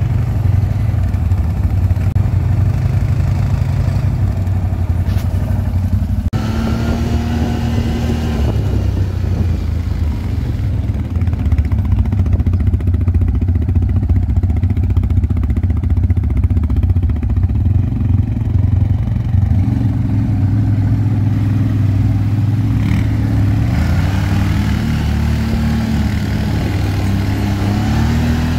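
CFMoto CForce ATV engine running while riding, its note rising and falling with the throttle.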